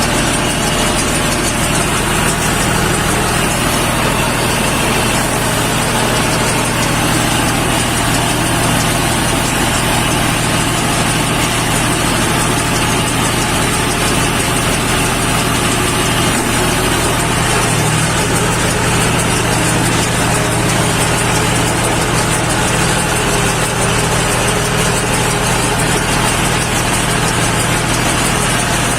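Tractor engine running steadily while driving a round straw baler, a loud constant mechanical drone with the clatter of the baler's working parts.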